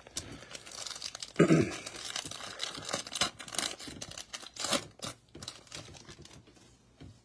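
Foil wrapper of a Panini Prizm basketball card pack being torn open and crinkled by hand: a run of crackles and rustles, loudest about a second and a half in, dying away over the last couple of seconds.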